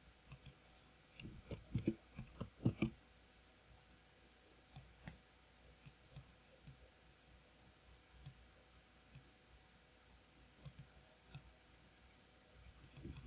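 Faint, sharp computer mouse clicks: a quick run of clicks in the first three seconds, then single clicks spaced a second or two apart.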